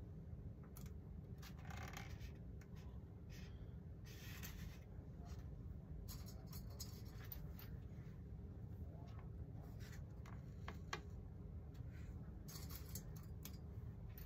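Light, irregular scratching, rubbing and clicking of hand work on a wooden model-aircraft wing, with a sharper click about eleven seconds in, over a steady low hum.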